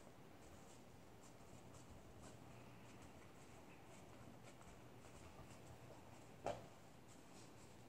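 Near silence: faint rubbing of wet, soapy hands on wool roving wrapped around a bar of soap, with one short tap about six and a half seconds in.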